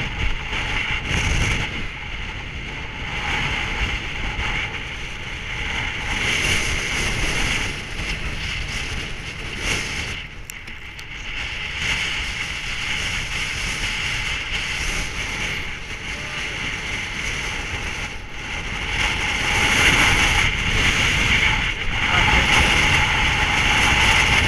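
Wind buffeting a camera microphone, a steady rushing noise with a low rumble, dipping briefly about ten seconds in and growing louder near the end.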